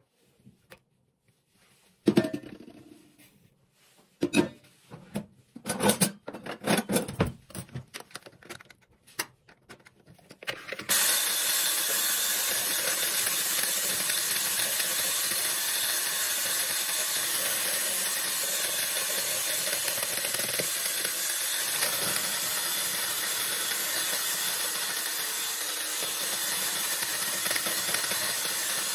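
A few knocks and clinks of glass and ceramic as eggs are tipped into a bowl. About eleven seconds in, an electric hand mixer starts and runs steadily, beating eggs and sugar into a foam.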